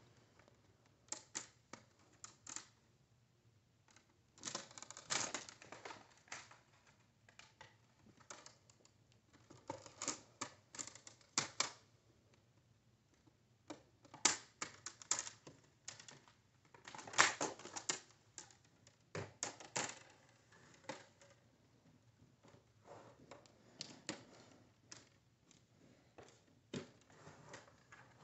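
Plastic screen bezel being pressed onto a laptop lid: its clips snap into place in irregular clusters of clicks and creaks, with short pauses between.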